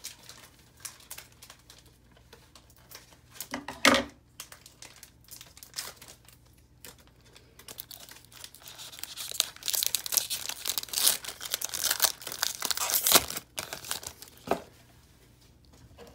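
Plastic wrapper of a football trading card pack crinkling and tearing as it is cut and pulled open by hand, loudest and most continuous in the back half. A single sharp click about four seconds in.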